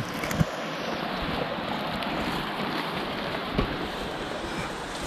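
Mountain river water rushing over rocks, a steady hiss of flowing water, with a faint knock about three and a half seconds in.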